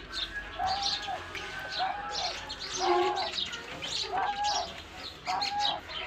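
Diamond doves cooing in short repeated notes about once a second, mixed with many quick high chirps from other small birds in the aviary.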